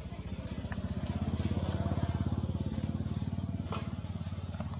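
An engine passing by, with a fast low pulsing that grows louder to about two seconds in and then fades.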